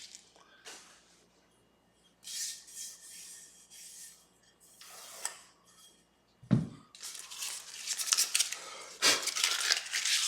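Sandpaper on a fret-levelling bar being worked and handled, with stretches of scratchy rasping and one dull thump a little past the middle.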